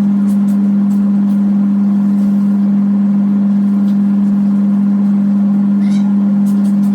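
Top-load automatic washing machine running, its motor giving a loud, steady low hum at one unchanging pitch. A brief high rising chirp sounds about six seconds in.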